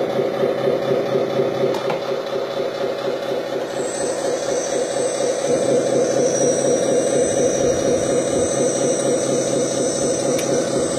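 The electric hydraulic pump of a LESU 6x6 RC tipper truck running steadily with a whining hum while it raises the dump bed. A thin high whine joins about four seconds in.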